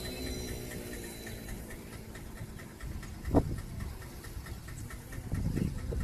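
Outdoor wind buffeting the phone microphone as a low, uneven rumble, with a faint rapid ticking repeated several times a second and a single knock about three and a half seconds in.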